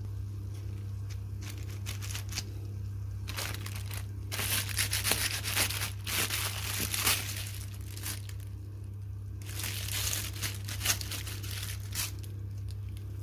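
Plastic oven bag wrapped around a roast chicken crinkling and rustling as it is handled, in dense bursts from about three seconds in until about nine seconds, then only a few light crackles. A low steady hum runs underneath.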